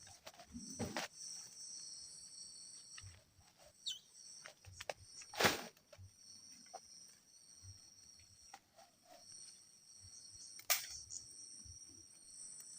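Steady high-pitched insect chorus of several continuous tones, with scattered light clicks and two sharper knocks, about five and a half and eleven seconds in.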